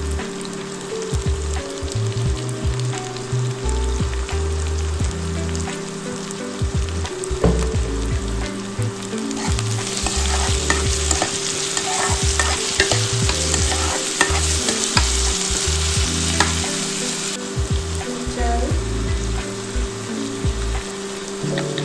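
Curry ingredients frying and sizzling in oil in a pan while they are stirred, with the utensil scraping and clicking against the pan. The sizzle grows louder and brighter about ten seconds in, then drops back about seven seconds later.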